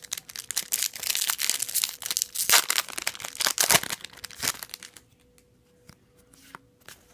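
Foil Yu-Gi-Oh! booster pack being torn open and crinkled for about five seconds, with sharp crackles, then a few faint clicks of cards being handled.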